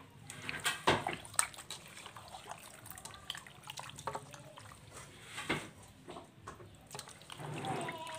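Wet squelching and dripping as pork chops and chicken pieces are turned over by hand in a bowl of marinade, with irregular soft splats and clicks.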